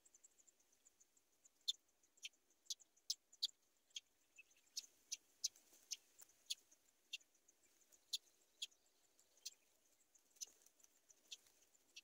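Faint steady high insect hum with sharp ticking clicks at irregular intervals, a couple of dozen in all and thicker in the middle, standing out above it.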